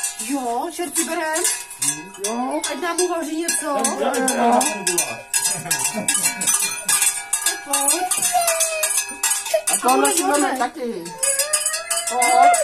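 Bells worn by a costumed devil (čert) clanking and jingling without pause as he moves about. A voice rises and falls in long wavering cries over the bells.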